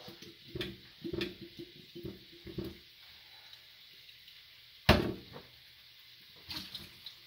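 Glass canning jars and their metal lids clinking and knocking as home-canned jars are opened and emptied, several light knocks early, then one sharp loud knock about five seconds in, then a few softer clicks.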